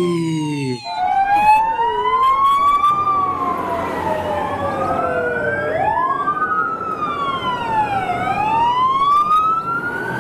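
Fire truck sirens wailing, several tones sweeping up and down and crossing over each other, over a steady rushing noise. A different, shorter electronic siren tone gives way to them under a second in.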